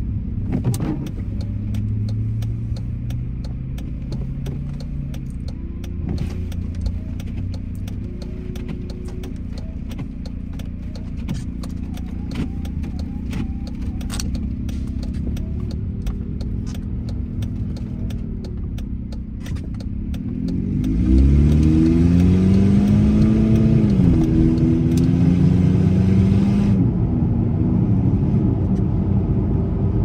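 Inside a car's cabin: a steady low rumble of the engine and road with scattered light ticks. About two-thirds of the way in it gets louder and the engine's pitch rises as the car accelerates away.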